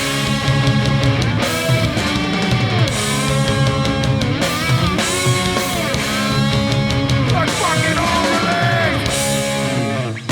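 Hardcore punk band playing live at full volume: distorted electric guitars with bending notes over bass and steady drum hits.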